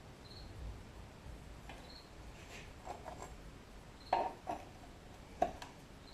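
A few light knocks and clicks, as of metal parts being handled, with the sharpest about four seconds in and another near the end. A short faint high chirp repeats about every two seconds throughout.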